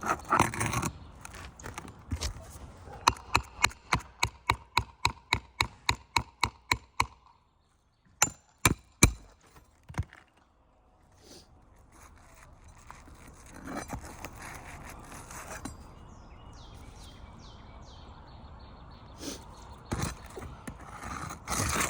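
Sharp tapping of a roofing tool being struck to work a high nail loose under brittle asphalt shingles: a quick run of about fourteen knocks, three or four a second, then three harder knocks. Quieter scraping of the tool and shingles follows.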